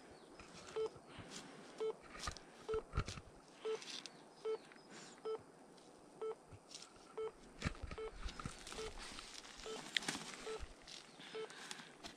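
An electronic treasure-hunting detector giving short, identical beeps at one pitch, about one a second, as it scans for a signal. Scattered clicks and rustles of handling or steps run among the beeps.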